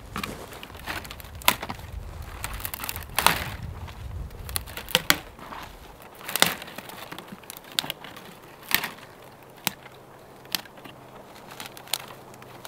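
Dry dead branches being snapped off a tree by hand: a series of sharp snaps and twig crackles, one every second or two.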